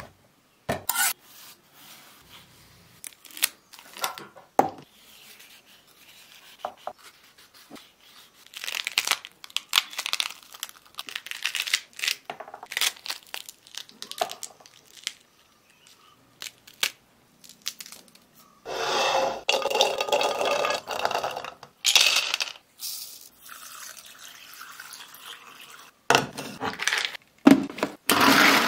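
Pomegranates being cut and their rind cracked and torn apart by hand: a run of short snaps, crackles and tearing sounds. There are two longer, steadier noisy stretches, one around the middle and one near the end.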